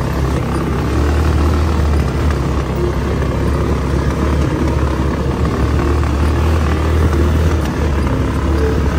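Small off-road buggy driving on a dirt road, heard from the driver's seat: a steady low engine drone under wind and road rumble.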